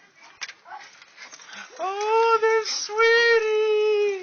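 A schnoodle howl-whining with excitement: two long, steady, high notes, the second held over a second, after a few faint clicks.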